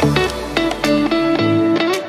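Background music led by plucked guitar notes over a steady beat.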